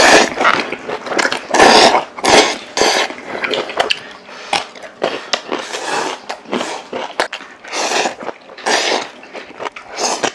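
Loud, repeated slurping of ramen noodles and hot broth from bowls by two people eating, in a string of short noisy sucks, the strongest right at the start and about two seconds in.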